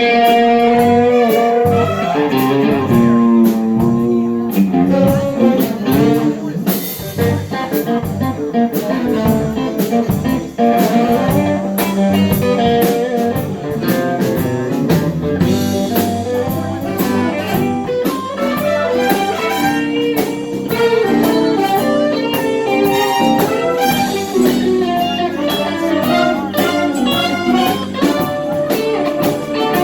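Blues music led by guitar, a steady run of plucked notes over the band.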